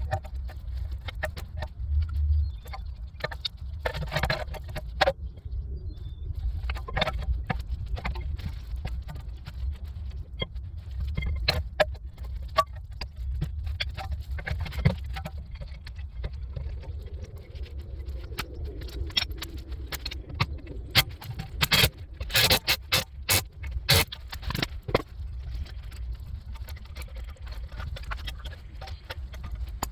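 Clicks, clinks and metallic clatter of tools and brake parts being handled during a rear rotor and pad change, over a steady low rumble. The knocks come thick and fast about two-thirds of the way in.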